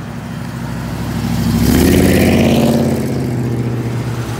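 A classic car driving past, its engine note and tyre noise swelling to a peak about two seconds in and then fading as it goes by.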